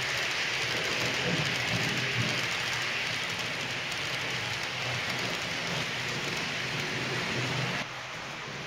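H0-scale model freight train of VTG tank wagons rolling along the track: a steady hiss of small wheels on the rails with a low rumble beneath. The sound drops suddenly just before the end.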